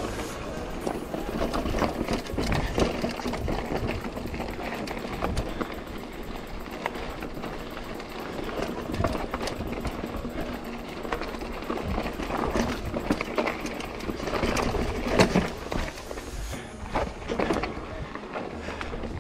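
Lapierre Zesty AM mountain bike clattering and rattling over rocky singletrack on a fast descent: tyres crunching on loose stone, with irregular knocks from the bike, and wind rumbling on the helmet camera's microphone.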